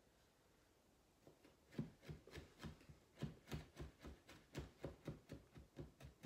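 Kitchen knife mincing garlic on a wooden cutting board: quick, even knocks of the blade on the board, about three or four a second, starting a little under two seconds in.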